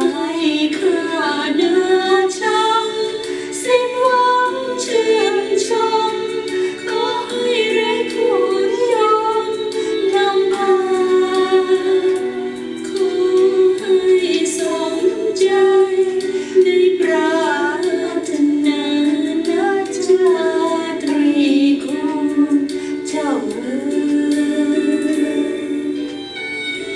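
A woman singing a slow Thai song solo, her voice gliding and ornamenting between held notes, over a steady instrumental accompaniment.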